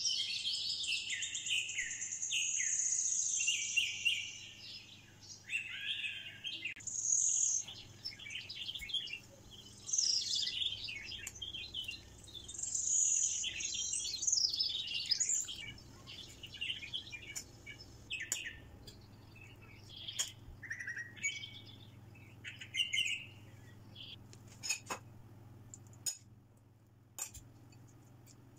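Birds chirping and singing in quick, warbling phrases, busy through the first half and then sparser, with a few sharp light clicks near the end.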